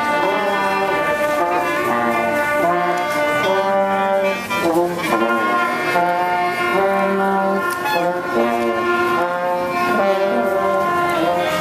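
Street brass band playing a tune as it marches: trombones and trumpets carry the melody over a tuba bass line, with a clarinet.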